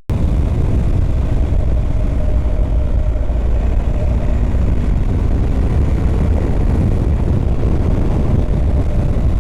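BMW R 1250 GS Adventure boxer-twin motorcycle cruising at a steady speed: a constant low engine and wind rumble heard from the rider's position. It cuts out for a split second at the very start.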